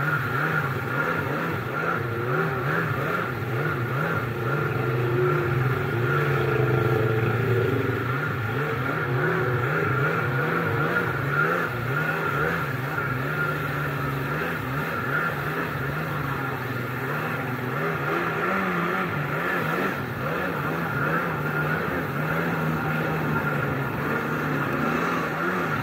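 1998 Kawasaki SXi Pro stand-up jet ski's two-stroke engine running at speed, its revs rising and falling as the throttle and hull load change, over the rush of water spray off the hull.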